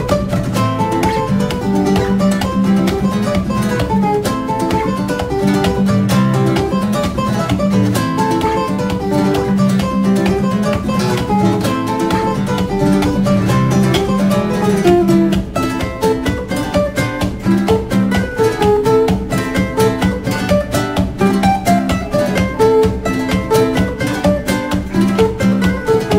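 Background music: acoustic guitar with quick plucked notes, turning more sharply rhythmic about halfway through.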